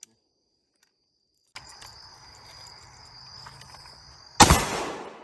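Insects trilling steadily, then near the end a single loud AR-style rifle shot that echoes and dies away over about a second.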